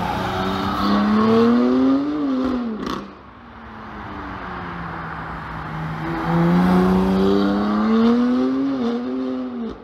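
BMW M3 Competition's twin-turbo straight-six, running through its stock downpipes, accelerating past twice. Each time the engine note climbs steadily, then drops away and cuts off suddenly, the second time with the exhaust valves open.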